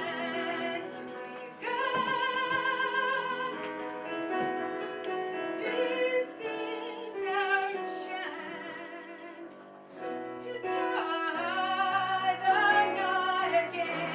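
A woman singing long held notes with wide vibrato over a steady instrumental accompaniment.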